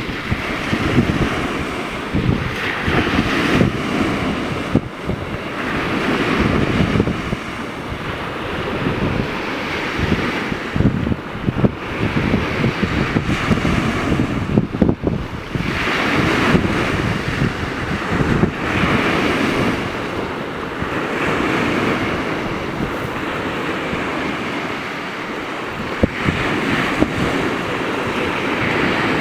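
Wind buffeting the microphone over water splashing and rushing past a windsurf board, the splashing swelling and fading every two to three seconds.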